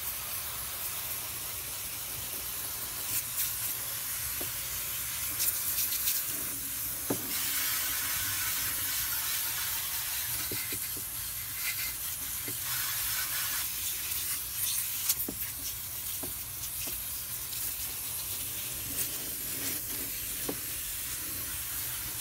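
Garden hose spray nozzle on a gentle setting, spraying water over an engine bay and rinsing off degreaser. A steady hiss of spray with water splashing on plastic, and a few faint clicks.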